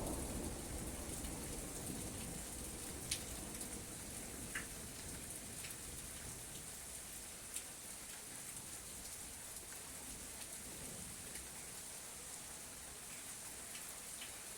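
Steady rain falling, a continuous hiss with a few sharp drips standing out. The tail of a low thunder rumble dies away in the first couple of seconds.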